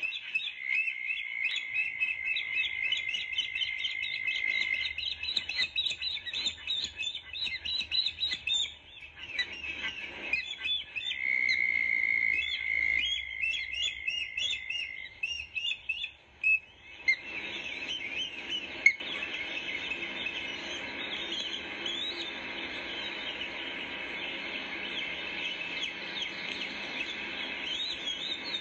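Ospreys calling at the nest: rapid series of high chirps, with a steady high tone held for about four seconds twice, near the start and in the middle. From a little past halfway the chirping turns denser over a steady hiss.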